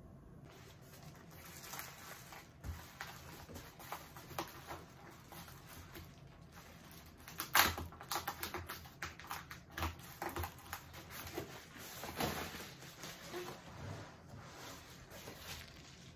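Packing material rustling and crinkling as a cardboard box is unpacked: crumpled kraft-paper padding and bubble wrap handled and pulled out, in an irregular run of crackles and clicks. The loudest crackle comes about seven and a half seconds in.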